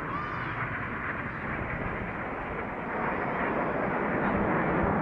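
Jet aircraft flying past in formation: a rushing jet noise that grows louder about three seconds in.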